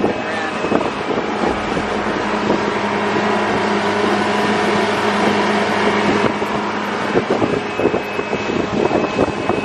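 Small fishing boat's motor running steadily at a constant pitch while the boat is under way, with rushing wind and water noise over it.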